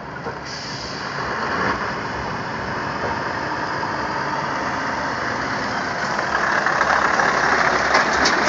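Scania R620 truck's V8 diesel engine running as the truck drives up and comes alongside, growing steadily louder, loudest over the last couple of seconds.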